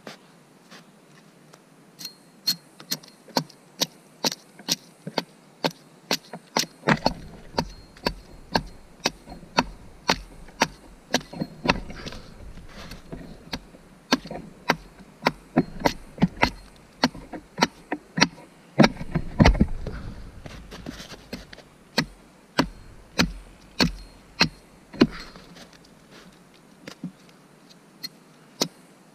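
Axe hewing the outside of a wooden cup blank set upright on a chopping block: a steady run of sharp chops, about one or two a second, with a low rumble coming and going under them in the middle stretch.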